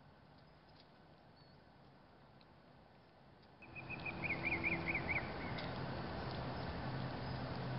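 Quiet at first. About halfway through, a steady rushing noise with a low hum comes up and stays, and a bird gives a quick trill of about five rising-and-falling notes over it.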